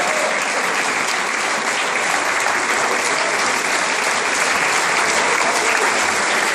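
Large audience applauding, a dense, steady clapping that holds at an even level.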